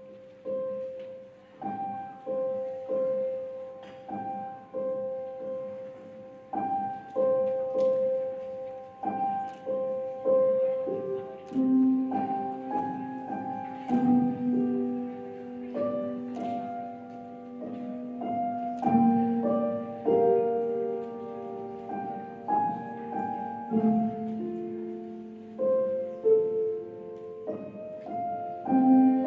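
Slow solo piano music: a gentle repeating figure of single notes, one roughly every second, with deeper held notes joining about halfway through.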